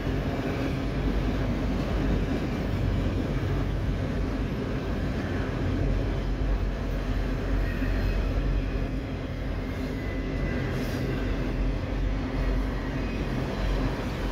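CSX freight train of autorack cars rolling steadily past, the steady noise of steel wheels running on the rails.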